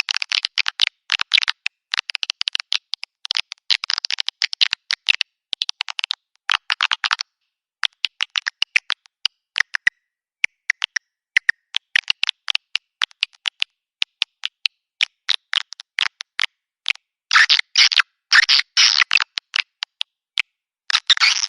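Swiftlet call recording (suara panggil) of the kind played to lure swiftlets: rapid trains of high chirping clicks in dense bursts, thinning to scattered single clicks through the middle, then dense bursts again near the end.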